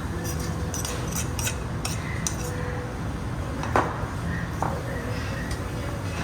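Tableware clinking while eating: spoons and chopsticks tapping against bowls and plates in a run of light clicks, with a sharper, ringing clink about four seconds in, over a steady low background hum.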